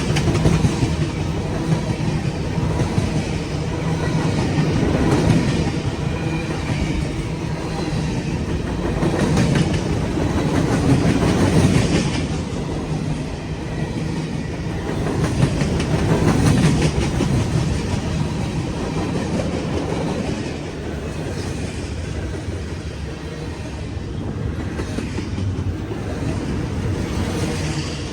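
CSX freight train rolling past, its wheels clicking and clattering over the rail joints in a steady rumble that swells and eases as the cars go by.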